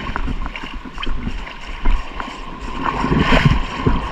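Shallow sea surf washing and splashing around a wading angler's legs, in irregular sloshes with a bigger splash a little past three seconds in.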